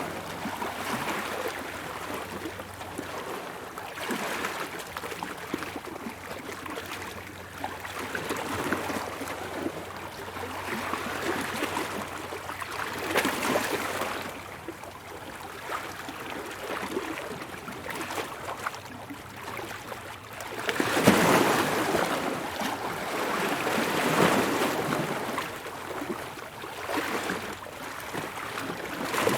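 Ocean waves washing in and out, a rushing swell every few seconds; the biggest surge comes about two-thirds of the way through.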